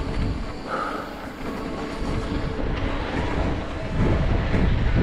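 Mountain bike being ridden over rough trail: a steady rattling rumble that gets louder about four seconds in, with a brief high squeak about a second in.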